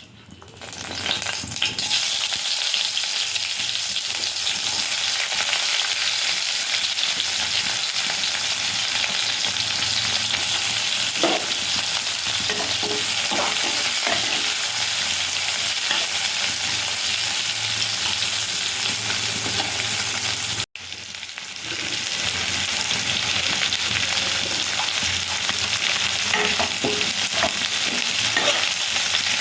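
Food sizzling steadily in hot oil in a pan, with a spoon now and then clinking and scraping as it is stirred. The sizzle fades in over the first couple of seconds and breaks off for an instant about two-thirds of the way through.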